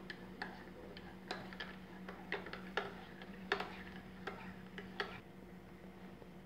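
A spoon clinking irregularly against the inside of a ceramic mug while stirring. The clinks stop about five seconds in.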